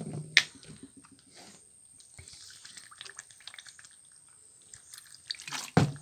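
Liquid poured from a plastic bottle into a green bamboo tube packed with pork, trickling and dripping inside the tube. A sharp knock comes just after the start and a louder knock near the end as the tube and bottle are handled.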